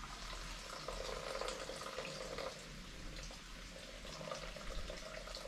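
Broth trickling and dripping from a squeezed straining cloth into a bowl, faint.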